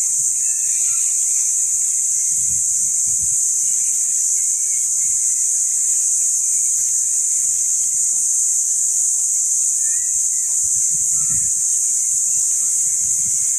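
A loud, steady high-pitched hiss that never changes, with a few faint low thuds about two and a half seconds in and again near the end.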